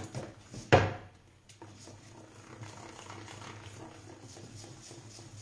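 A utensil beating batter in a mixing bowl, quick strokes about four a second that stop within the first half second, then one sharp knock just under a second in. After that only a faint low steady hum.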